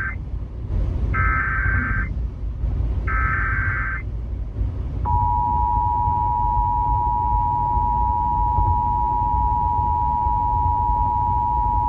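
Emergency Alert System SAME header: the end of one short warbling digital data burst, then two more about a second apart, followed about five seconds in by the steady two-tone EAS attention signal (853 and 960 Hz) of a Required Monthly Test, broadcast over FM radio.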